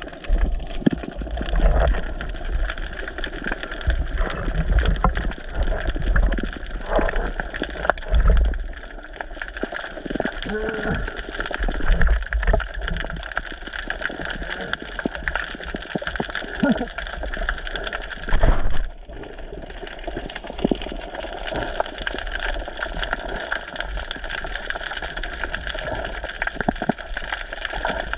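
Water sloshing and gurgling around a diver's camera, with many small clicks and some low thumps.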